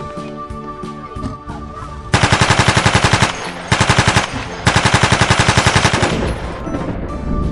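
Background music, then about two seconds in three bursts of rapid automatic gunfire, about a dozen shots a second, the last burst the longest; the music carries on under and after them.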